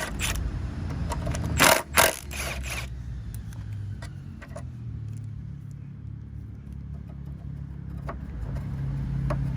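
Metal hand tools clinking and scraping while the scooter's front brake caliper bolts are undone. The loudest clatter comes about two seconds in, and a few lighter clicks follow over a steady low rumble.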